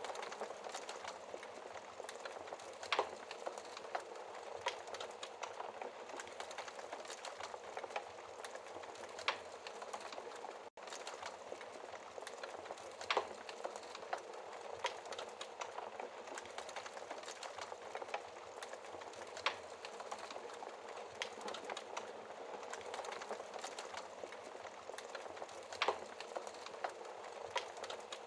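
Wood fire in a fireplace crackling steadily, with a louder sharp pop every few seconds. There is a split-second gap in the sound a little before the middle.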